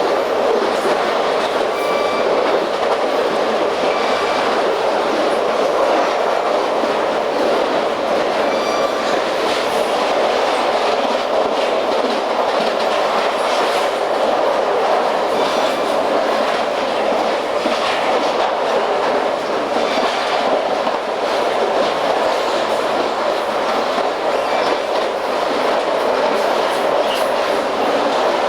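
Amtrak passenger train in motion, a steady rolling rumble of wheels on rail with some clickety-clack.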